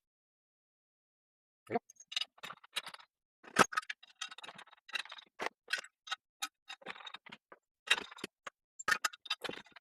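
A run of irregular metal clicks and knocks as pinball machine legs and leg bolts are fitted to the cabinet, starting about two seconds in.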